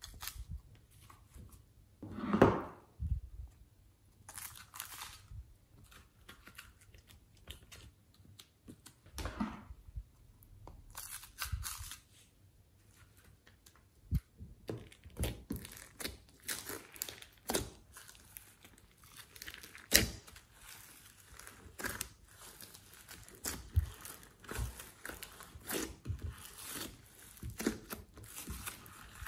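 Sticky slime being handled: peeled out of a mould, then pressed, stretched and mixed by hand. A loud sticky peel comes about two seconds in, and from about halfway the handling brings many short, irregular crackles and pops.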